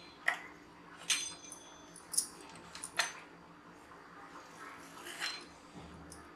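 A fluted metal pastry-cutter wheel run along the edges of stiff dough on a wooden rolling board, making about five sharp clicks and clinks spaced irregularly, one with a brief metallic ring.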